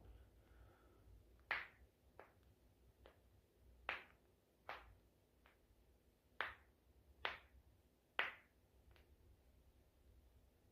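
Spinal joints cracking during a chiropractic back adjustment: a string of about ten sharp pops, roughly one a second, some much louder than others.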